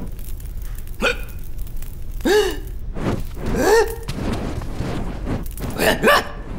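A cartoon creature's wordless vocal yelps and gasps, about five short ones in a row, each rising then falling in pitch, as its furry tail catches fire from a candle.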